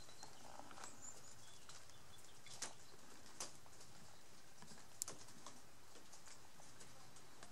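Quiet garden ambience: a steady faint hiss with a few scattered sharp clicks or taps, and a few short high chirps near the start.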